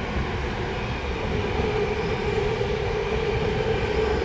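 Tokyo Metro 05 series subway train with permanent-magnet synchronous motors running between stations, heard from inside the car: steady rumble of wheels on rail with a steady hum that grows louder about a second and a half in.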